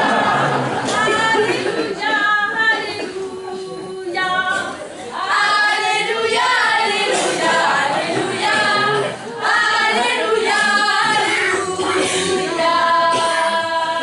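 Several voices singing together unaccompanied, ending on long held notes.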